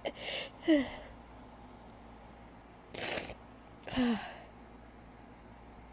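A woman sneezing twice, about three seconds apart. Each sneeze is a sharp burst with a falling voiced tail; the first follows a quick intake of breath, and a breathy rush of air comes about a second before the second.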